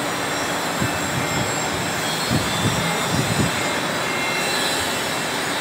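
Horizontal boring machine running, its spindle driving a twist drill into a large steel block: a steady machine and cutting noise, with a few low knocks about halfway through.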